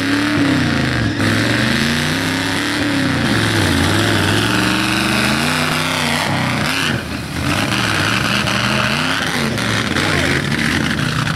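Lifted mud truck's engine revving hard, its pitch climbing and falling again and again as the big tires spin and churn through the mud, with a rushing spray noise over it. The engine briefly drops off about a second in and again about seven seconds in.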